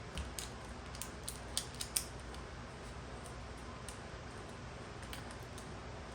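Small sharp clicks and ticks of laptop parts and connectors being handled during reassembly. They come in a quick cluster in the first two seconds, then scattered ones, over a low steady hum.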